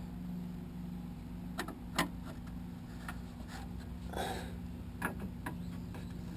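A handful of short clicks and taps from a screwdriver and fingers working at the screws of a 1975 Corvette's rocker-panel trim, with a soft rustle about two-thirds through, over a steady low hum.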